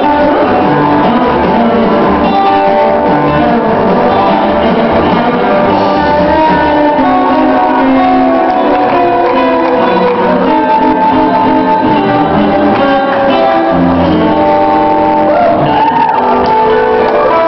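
Live band music played loud in a large hall: a guitar lead holding and bending notes over a pulsing bass line, with shouts.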